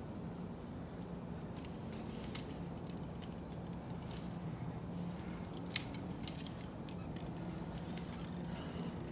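Scattered light metallic clicks and clinks of climbing gear on a climber's harness as he moves up a rock face, the sharpest a little past halfway.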